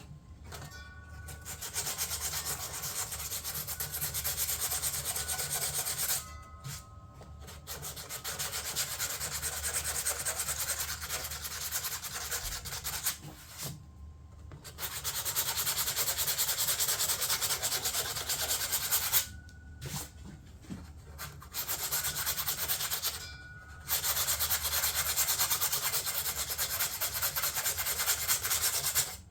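Sanding hardened body filler on a fiberglass door panel: a steady scratchy rasp in stretches of several seconds, broken by four short pauses.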